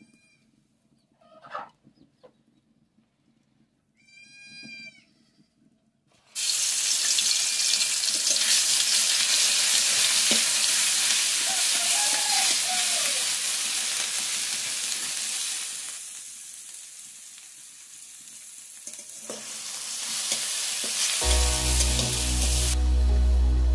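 Hot oil in an iron kadhai sizzling loudly as ingredients are dropped in. It starts suddenly about six seconds in and dips for a few seconds while the food is stirred with a spatula. Music comes in near the end.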